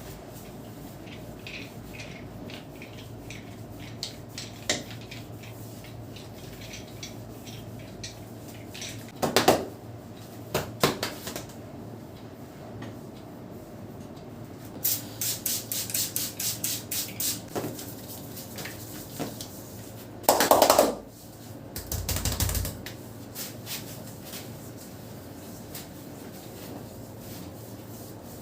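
Sharp claps and snaps of a barber's hands during an Indian head massage: a few single snaps, then a quick run of about ten claps in the middle, and two louder strikes later.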